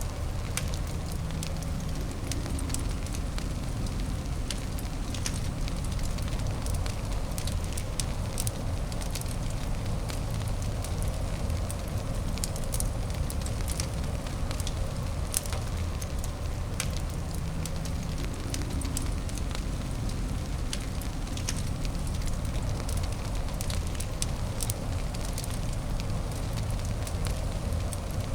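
Fireplace fire crackling: frequent small sharp pops and snaps, irregularly spaced, over a steady low rumble.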